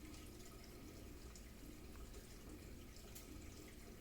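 Faint steady trickle and low hum of a reef aquarium's circulating water, with a few tiny drips.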